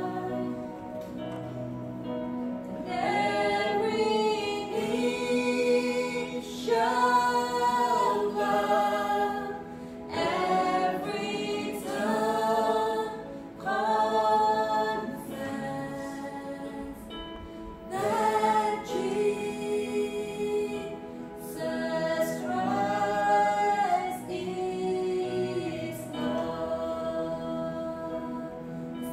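Choir singing a worship song in long sung phrases, over a steady low held tone.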